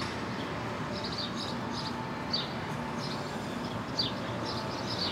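Small birds chirping: short, high notes, several of them sliding down in pitch, repeated every second or so over a steady low outdoor rumble.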